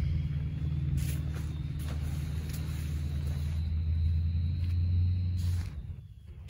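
A low, steady motor rumble, like an engine running, that stops about five and a half seconds in, with a few light clicks over it.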